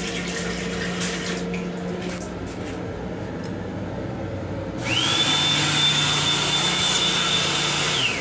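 Faucet water running in a train restroom sink, then an electric hand dryer in the sink unit starts about five seconds in. Its motor spins up with a quickly rising whine, blows steadily for about three seconds, and winds down near the end.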